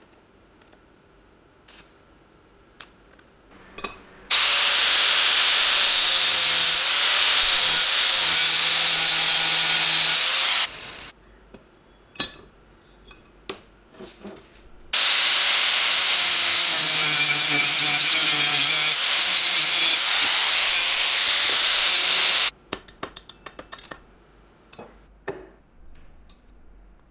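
A power tool working on steel in two long steady runs of several seconds each, its motor pitch wavering under load. Clicks and knocks of metal being handled come before, between and after the runs.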